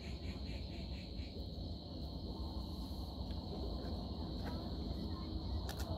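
Insects trilling steadily at a high pitch, with a faster pulsing chirp in the first second or so, over a low rumble.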